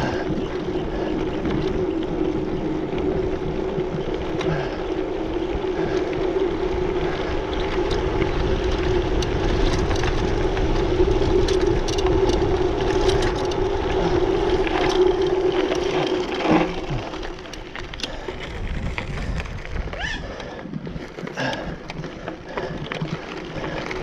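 Mountain bike rolling fast down a dirt trail: a steady hum and low rumble with scattered clicks and rattles over the rough ground. The hum cuts off about two-thirds of the way through, leaving quieter, uneven rolling noise.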